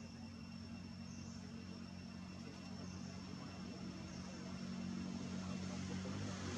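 Ambient outdoor hum: a steady low motor drone that grows louder toward the end, under a thin, steady high-pitched insect drone.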